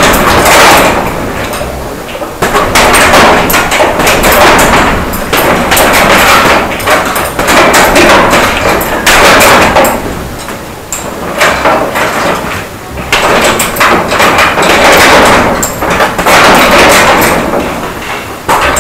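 Boxing gloves punching a hanging heavy bag, a rapid run of slaps and thuds in flurries with short pauses between them.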